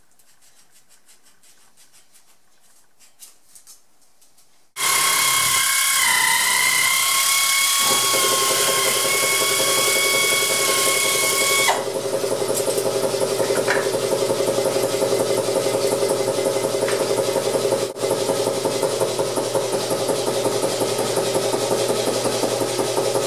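Air-powered cutting tool starting up about five seconds in and running with a steady high whine. A few seconds later the whine drops to a lower, rougher sound as the tool cuts into the steel exhaust pipe.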